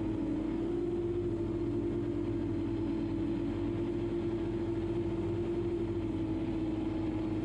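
Quadcopter drone's electric motors and propellers humming at a steady pitch, rising slightly about half a second in, over a low rumble.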